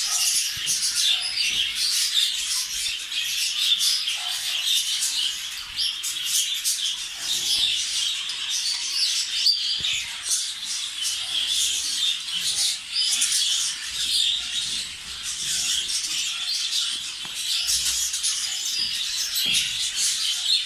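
Many caged budgerigars chattering and chirping at once, a dense, unbroken mass of high chirps.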